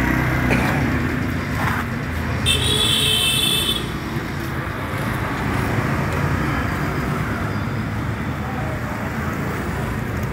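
Steady background noise like road traffic, heaviest in the low end, with a brief high-pitched squeal about two and a half seconds in that lasts just over a second.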